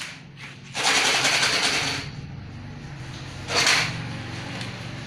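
Rapid rattling from a small plastic jar being shaken, its contents clattering inside: one burst of about a second, then a shorter one near the middle.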